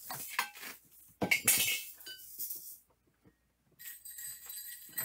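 Small hard objects clinking and knocking as someone rummages through a box of rhythm-band props. Near the end comes a faint, thin metallic ringing like small jingle bells.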